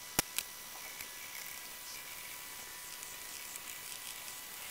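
Two sharp clicks at the start as the lid comes off a small metal can of wood stain, then a faint, steady hiss.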